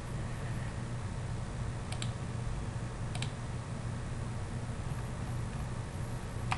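Computer mouse clicks, in quick pairs about two and three seconds in and once more near the end, over a steady low hum.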